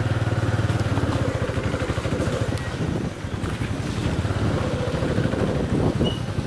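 Motorcycle engine running steadily as it travels along the road, with a brief easing off about three seconds in.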